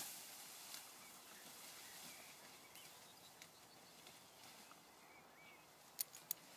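Near silence: faint open-air ambience with a few faint, distant bird chirps. Two sharp clicks come close together near the end.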